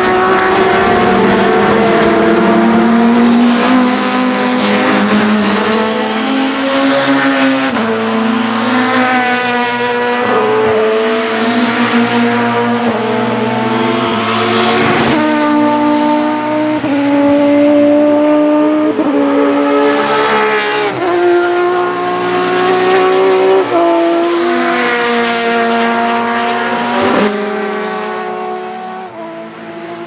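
1990s Super Touring racing car's 2-litre engine at high revs, climbing in pitch through each gear with sharp breaks at the gear changes. It fades away near the end.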